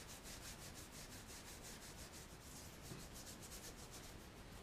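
A cloth rag rubbing back and forth over the greasy cast-iron head of a pillar drill, scrubbing off degreaser and old oil. It is a faint, steady, rhythmic rubbing.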